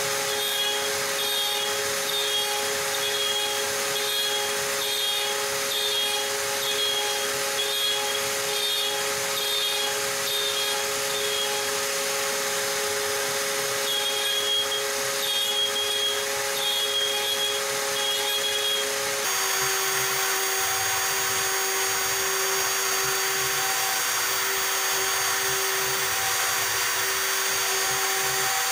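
Stepcraft M1000 CNC router running a job: a steady spindle whine with the stepper motors chirping in short runs as the axes move. About two-thirds of the way through, the whine changes pitch abruptly.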